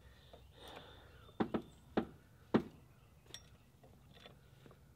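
Hydraulic floor jack being pumped by foot, its handle and pump giving a series of sharp metal clacks about half a second apart, the strongest four in the first half, then fainter ticks. The jack is raising the front hub so the new coilover can go up into place.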